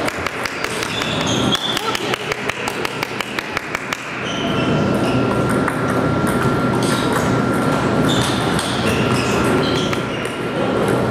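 Table tennis ball clicking rapidly off rackets and table during a rally, about six clicks a second, stopping about four seconds in. After that, steady hall noise with a faint steady whine.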